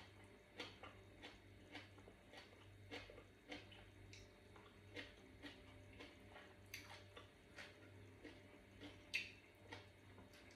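Faint close-up chewing: soft, irregular mouth clicks and smacks, about two a second, with one louder click near the end, over a low steady hum.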